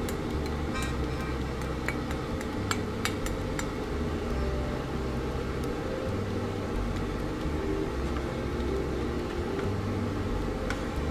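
Steady low machine hum with a few light clicks.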